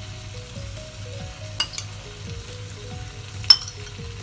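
Chicken in yogurt sizzling in a frying pan on a gas stove, while a metal spoon scrapes fresh cream from a ceramic bowl. The spoon clinks sharply against the bowl twice, louder the second time near the end.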